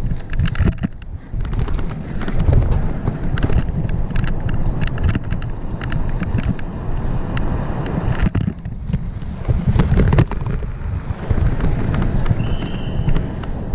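Wind buffeting the microphone of a helmet-mounted camera as a full-suspension mountain bike descends a rough dirt trail at speed, with the rattle and clatter of the bike over bumps. A short high-pitched tone sounds briefly near the end.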